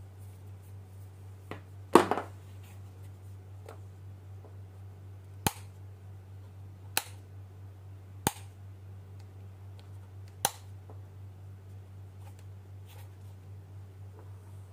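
Rocker power switch on an APC surge protector clicking: four sharp clicks a second or two apart, after a louder clattering knock about two seconds in. A low steady hum sits underneath.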